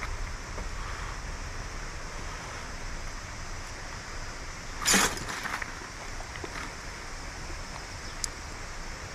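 Steady rushing of a flowing river, broken by a single sharp knock about five seconds in and a faint tick near the end.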